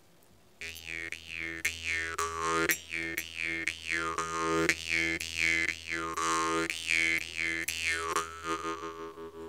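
Jaw harp playing a steady drone with regular plucks about twice a second, its overtones sweeping up and down in a repeating wavy pattern. It starts about half a second in and fades near the end.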